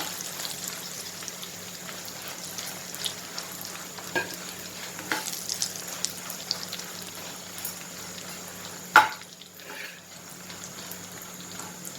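Sun-dried curd chillies (thairu mulaku) frying in hot coconut oil, a steady sizzle with scattered small crackles, crisping in the oil. One sharp knock comes about nine seconds in.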